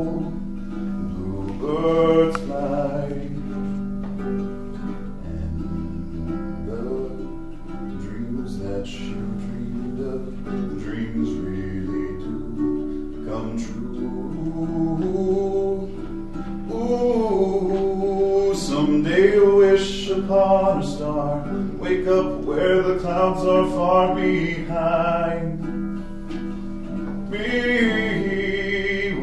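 Ukulele strummed steadily under a man's wordless singing, which rises and falls through the tune and is strongest in the middle of the passage.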